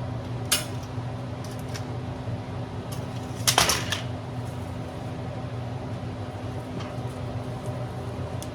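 Metal pieces clanking: a short clank about half a second in, then a louder clattering clank about three and a half seconds in, over a steady electrical hum.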